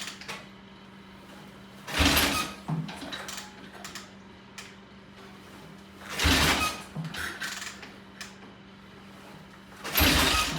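Triumph T20M single-cylinder engine being kicked over three times, about four seconds apart, each kick a short, loud scrape without the engine catching: a hard start. A faint steady hum runs underneath.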